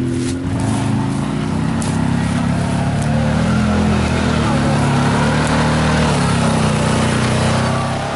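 CFMOTO ZForce 1000 side-by-side's V-twin engine working under load as it climbs a steep, rough grassy slope, its pitch wavering slightly with the throttle.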